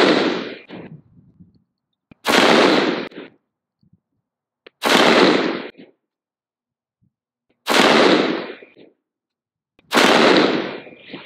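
A 10.3-inch-barrelled AR-15 (Geissele URG-I upper) firing .223 Winchester 69-grain match ammunition in slow aimed semi-automatic fire: five shots about two and a half seconds apart, each ringing out for about a second.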